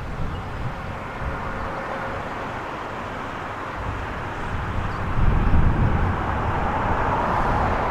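Outdoor vehicle noise with gusty low rumble of wind on the microphone, swelling louder about five seconds in as a vehicle passes.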